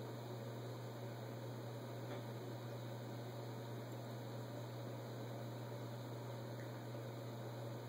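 Steady low hum with a faint hiss underneath, unchanging, with no distinct knocks or beats.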